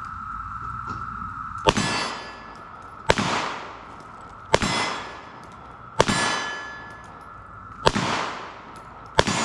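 Six semi-automatic pistol shots fired at a steady pace, about one and a half seconds apart. Each shot is followed by a ringing echo that dies away, and a steady high whine runs underneath.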